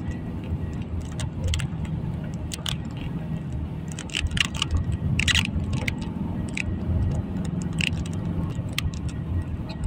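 A vehicle's engine running with a steady low hum, with light jangling and clicking rattles over it.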